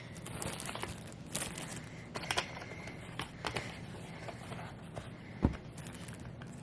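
Small handling sounds: a few light clicks and rustles over a low hum, with one short, louder low thump about five and a half seconds in.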